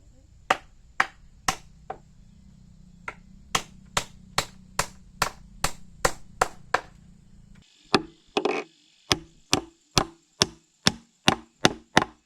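Steady chopping with a blade, about two strokes a second, each a sharp strike. One heavier, ringing blow comes about eight seconds in.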